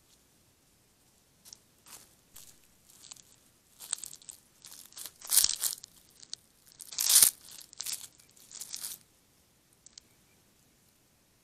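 Scratchy rustling and scraping as a coyote's fur brushes and rubs against the trail camera up close. It comes in a string of short bursts, the loudest about halfway through.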